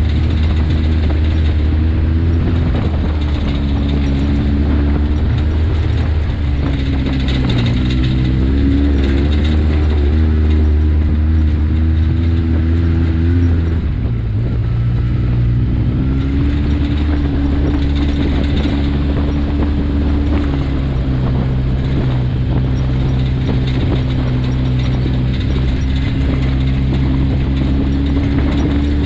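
Engine of a side-by-side off-road vehicle running under way on a dirt trail, its pitch stepping up and down with the throttle; it eases off about halfway through, then picks up again.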